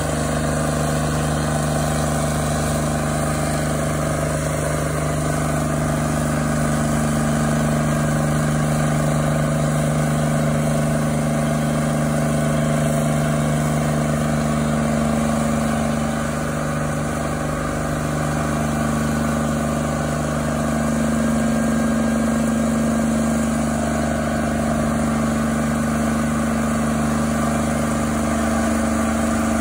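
Intimidator SP7015 stump grinder's engine running steadily, its pitch shifting a little about halfway through.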